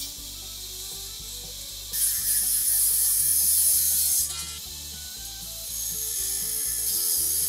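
Angle grinder with a cut-off disc cutting through square steel tubing, with a loud high-pitched whine and hiss. It bites in two spells, about two seconds in and again from about six seconds in, and runs quieter between them.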